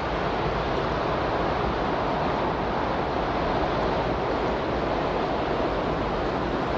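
Steady, even rushing noise with no swells or breaks, a continuous noise bed of the kind used as the background of a subliminal recording.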